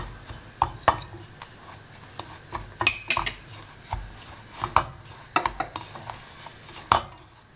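Wooden spatula scraping through roasting semolina (rava) and knocking against the side of the pan while stirring, with irregular taps.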